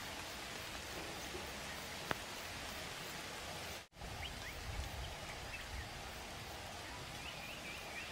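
Steady rain falling, an even hiss. There is a single sharp click about two seconds in and a brief dropout to silence near the middle, with faint short high chirps in the second half.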